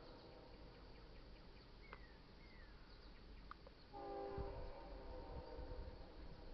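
Diesel locomotive air horn on the leading BNSF GE ES44DC, blowing its chord for a grade crossing. The first four seconds are quieter, with a few faint bird chirps. Then a long blast starts about four seconds in and cuts off just before the end.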